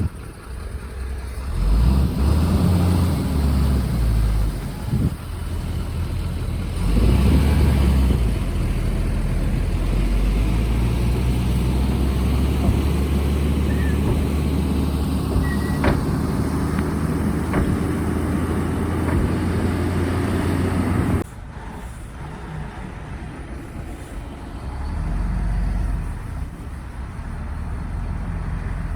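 Heavy diesel engines of a bulldozer and wheel loader working sand. The engine surges up about two seconds in and again about seven seconds in, then runs steadily under load. About three-quarters through the sound drops abruptly to a quieter engine that swells up again near the end.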